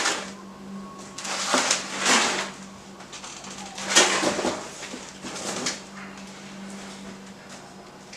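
Hunter Vista ceiling fan running on its factory low speed with a steady motor hum. Over the hum come about six short bursts of rushing noise, the loudest sounds, in the first six seconds.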